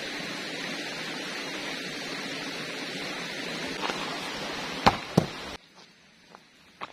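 Steady rush of a shallow stream running over rocks, with two sharp knocks close together about five seconds in. It then cuts abruptly to a much quieter background with a few faint steps through undergrowth.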